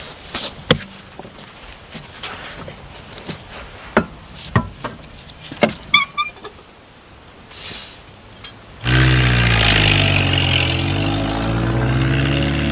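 Metal knocks and clinks of tyre-changing work on a jacked-up truck, with a short hiss of air about two-thirds of the way through. About nine seconds in, a truck engine comes in loudly, its pitch rising and falling as the truck drives off along a dirt track.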